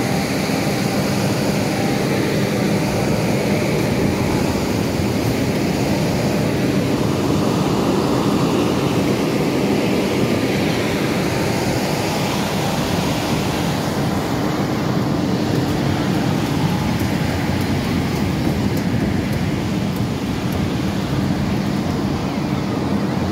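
Fairground ambience: a steady, even wash of noise from the crowd and running rides, with a faint steady low hum under it.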